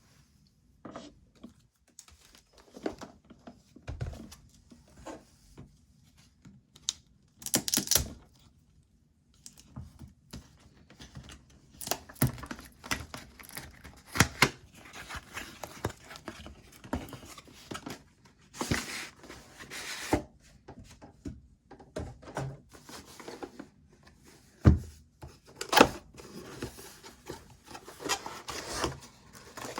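Keyboard packaging being opened and handled by hand: irregular rustling of wrapping lasting up to about a second at a time, with a few sharp knocks and clicks.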